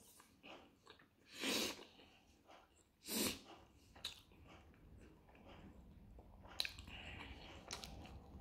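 Two short, loud breaths through the nose, about a second and a half apart, from a man chewing a mouthful of pljeskavica burger. Quieter chewing and small mouth sounds follow, with a fresh bite into the bun near the end.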